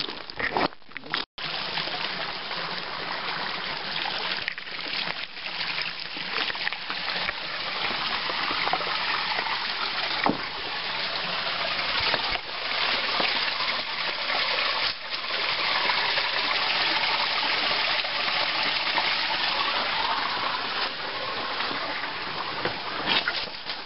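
Steady rush of creek water, a dense hiss that grows louder toward the middle.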